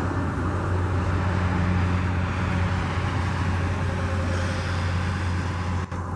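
Jet engines of a Boeing 737 on landing: a steady engine drone as the airliner passes low and touches down, the higher hiss slowly thinning as it moves away down the runway.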